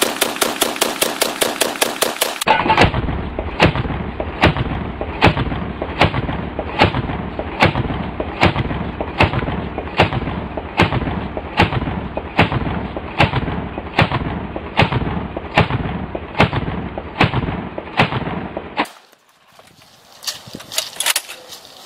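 AA-12 fully automatic 12-gauge shotgun firing at about five shots a second for the first couple of seconds. Then a long, duller string of shots comes at about one every 0.8 seconds, ending about 19 seconds in. Near the end come a few short metallic clicks from the drum magazine being handled.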